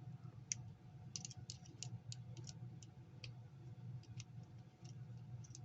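Faint, irregular small clicks and ticks from handling the screws and tip of a wood-burning pen during a tip change, over a faint steady low hum.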